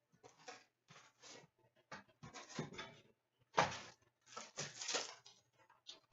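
A box of Upper Deck Series 2 hockey cards and its packs being opened by hand: irregular rustling, crinkling and tearing of packaging in short, uneven bursts.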